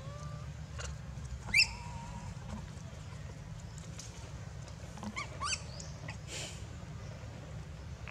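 Young long-tailed macaques squealing: one short loud high squeal about a second and a half in, then a quick run of short high calls about five seconds in.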